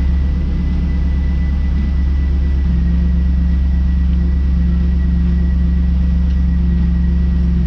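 The 5.7-litre LS1 V8 of a 2002 Pontiac Trans Am WS6 idling steadily, its note shifting slightly about two and a half seconds in.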